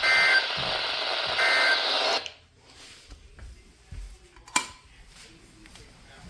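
Weather radio receiver static with short EAS end-of-message data bursts, at the start and about a second and a half in, marking the end of the flash flood warning broadcast. The static cuts off suddenly about two seconds in, leaving a quiet room with a single sharp click a little past the middle.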